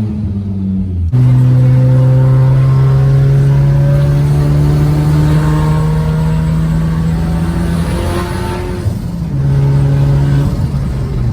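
Turbocharged Audi A4 engine pulling hard under acceleration: a loud jump in engine note about a second in, then a slowly rising pitch that eases off briefly about eight seconds in and picks up again.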